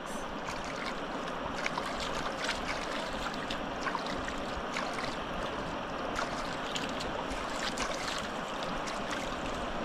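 River water running, with small splashes and drips as legs are rinsed in it.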